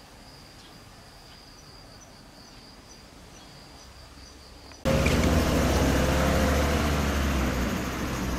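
Insects trilling steadily on one high note, with faint regular ticks. About five seconds in, this cuts off abruptly and a much louder low rumble begins, with a faint tone in it that slowly falls.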